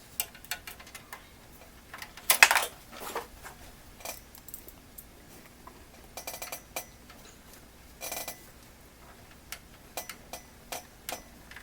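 Small clicks, taps and clatters of metal and plastic computer parts being handled and fitted during a PC build, with the loudest knock about two and a half seconds in and short rattles around six and eight seconds.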